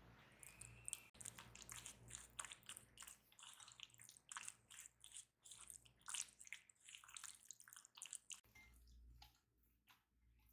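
Faint wet squishing and dripping from food being worked by hand: a quick, irregular run of soft short sounds that thins out near the end.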